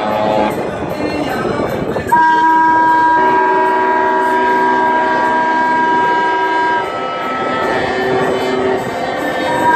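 Ship's horn sounding a long, steady multi-tone chord that starts abruptly about two seconds in. Part of the chord drops out about seven seconds in, and another blast begins just before the end, over a rumble of boat engine and water.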